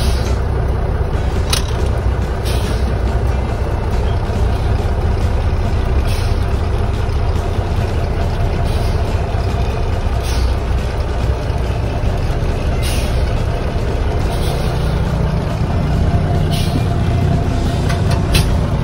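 Cummins 230 diesel engine of a 1965 Brockway 257T truck running steadily under way, heard from inside the cab as a steady low rumble. A few scattered short knocks or rattles sound over it.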